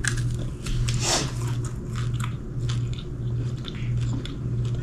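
Close-up biting and chewing of a fried pork chop, the crisp fried coating crackling in short sharp crunches. A low hum pulses steadily about twice a second underneath.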